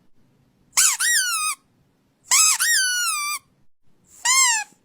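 Squeaky toy squeezed three times, giving high-pitched squeaks that rise and then fall in pitch. The first two squeezes each make a quick double squeak; the last, near the end, is a single short one.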